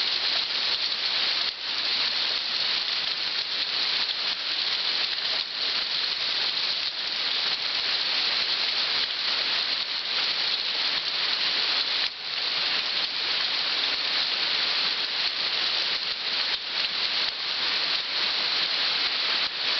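Pea- to marble-sized hail falling hard and pelting surfaces: a dense, steady clatter of countless small hits.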